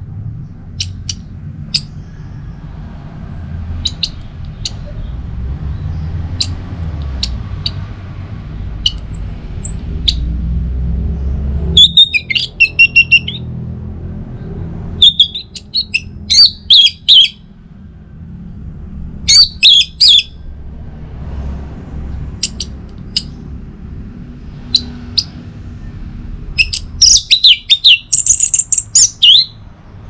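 Caged orange-headed thrush singing. Faint short chirps come first, then several loud bursts of quick, varied song in the second half, the longest near the end. This is the full-voiced 'ngeplong' song that keepers try to bring out, heard over a steady low hum.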